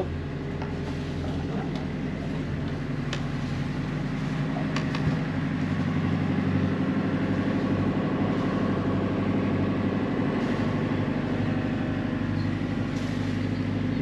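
Yanmar inboard marine diesel engine running steadily at raised revs, about 1500 rpm. It grows a little louder over the first few seconds as it is throttled up, then holds level.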